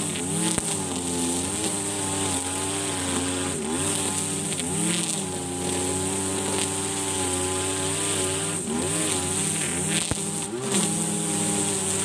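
Husqvarna 542RBS 42cc two-stroke backpack brush cutter running at full throttle, its engine pitch dipping and recovering again and again as the 2.2 mm nylon line bogs down in thick, tall grass, with a steady high whir from the spinning line.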